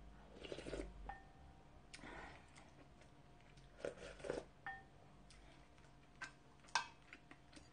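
Quiet eating sounds: mouthfuls taken from a wooden spoon, then chewing, with a few short wet smacks and soft clicks scattered through.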